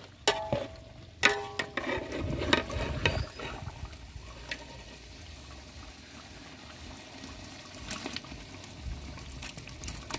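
Mutton gravy bubbling and simmering in a pot. Sharp knocks and clatter come in the first three seconds, then a steady bubbling with occasional small pops.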